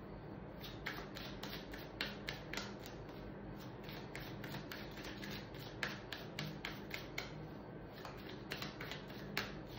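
Tarot cards being handled: irregular light clicks and taps, about two or three a second, as cards are flicked and laid down, over a faint steady hum.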